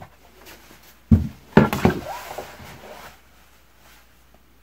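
Large plastic cutting mat set down flat on a table: two flat thuds about half a second apart, followed by a short rustle as it is slid into place.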